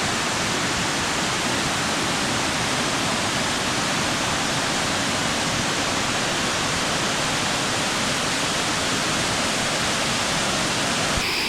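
Connestee Falls, two waterfalls converging into a valley, giving a steady, even rush of falling water.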